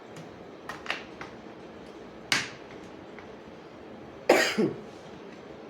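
A few sharp clicks and knocks from tools being handled, then a louder short burst about four seconds in that falls in pitch.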